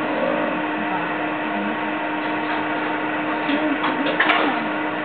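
Eiffel Tower elevator car climbing: a steady mechanical hum and rush with a constant low tone, and a sharp click about four seconds in.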